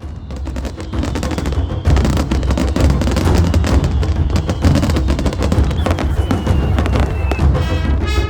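Fireworks bursting and crackling in quick succession, heavy in the low end, mixed with background music. The sound fades in at the start, and the music's melody comes forward near the end.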